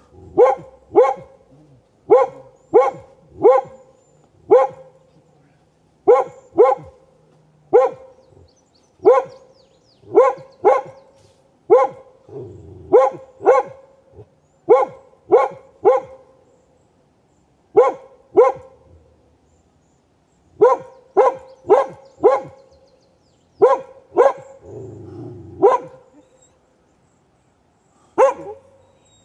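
A dog barking over and over, in quick groups of two to four barks with short pauses between them.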